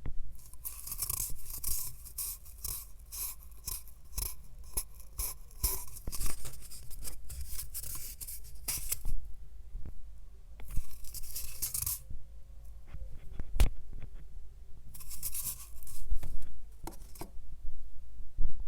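Quick, rapidly repeated scratching strokes close to the microphone, in three spells with short pauses and a few clicks between them.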